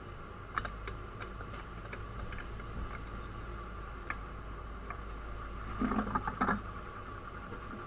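C-17 Globemaster III landing gear rolling slowly under tow over concrete: a steady low rumble with a steady high hum over it and scattered light ticks. A short cluster of rattling knocks comes about six seconds in.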